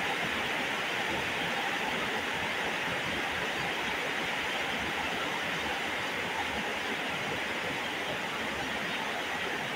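Heavy rain pouring onto a flooded yard, a steady hiss of drops striking standing water.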